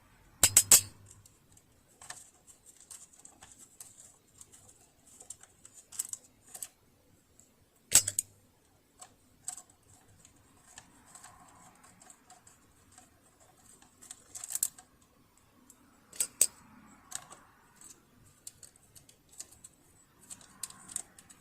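Scattered sharp clicks and light metal taps of a screwdriver and loose screws and cover parts being handled as a Riccar Bernina Holidayne 1090 sewing machine is taken apart. The loudest clicks come just after the start and again about eight seconds in.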